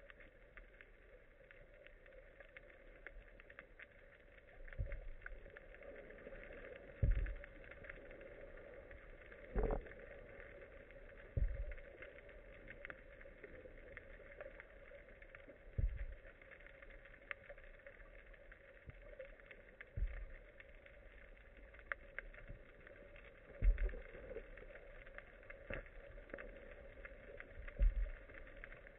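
Muffled underwater ambience heard through a sealed camera housing: a steady hiss with dull low thumps every few seconds, about eight in all.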